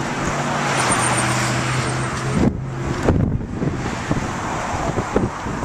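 Road traffic noise with a vehicle engine running in a steady hum; about halfway through the traffic wash drops away and uneven gusts of wind buffet the microphone.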